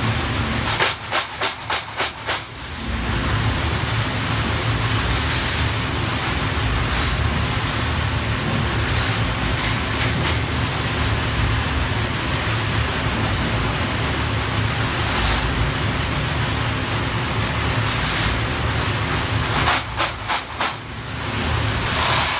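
Small metal bulb-holder shells rattling in a perforated plastic basket as it is shaken, in quick jingling strokes about a second in and again near the end, over a steady hiss.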